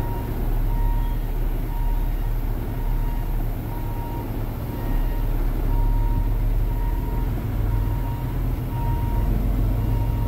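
Semi-truck engine running steadily, heard from inside the cab while driving slowly. A short, high, single-pitch beep repeats every second or so in the background.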